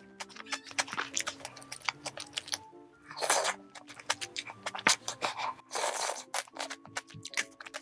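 Close-miked eating sounds: rapid crunchy chewing clicks, with two longer rushing noises about three and six seconds in, over background music.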